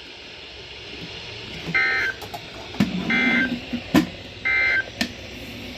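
Emergency Alert System end-of-message signal: three short bursts of SAME digital data tones, a raspy two-tone warble, about a second apart, marking the end of the alert. A few faint clicks fall between the bursts.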